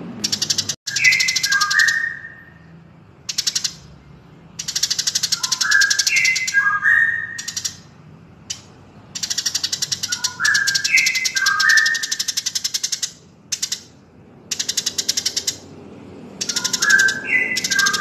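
Looped birdsong training track of Eurasian tree sparrow and white-rumped shama. A phrase of a few short whistled notes stepping downward comes back about every five seconds. Over it run long spells of very fast, high ticking chatter that stop and start.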